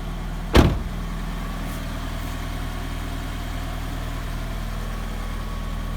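A car door shuts once, sharply, about half a second in, over a Scion FR-S's flat-four engine idling steadily.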